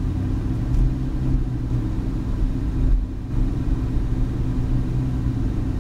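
Ferrari 488 GTB's twin-turbo V8 running steadily at low speed, a low hum heard from inside the cabin as the car rolls slowly.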